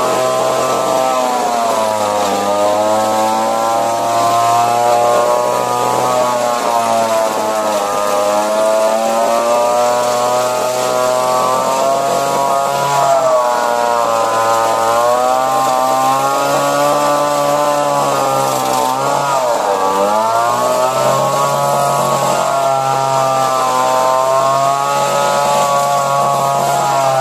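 Petrol hedge trimmer's small engine running at high revs, its pitch rising and dipping again and again as the blades cut through hedge branches, with a sharp dip and recovery about twenty seconds in.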